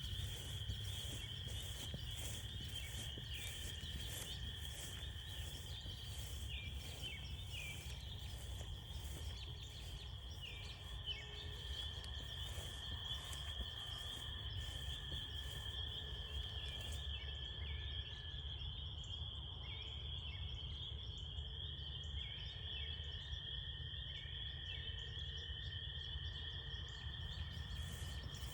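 Dense chorus of frogs calling together in a steady high trill, with a lower trill that drops out briefly about two-thirds through and short chirps over the top. Footsteps on the trail keep a steady pace and stop about two-thirds through.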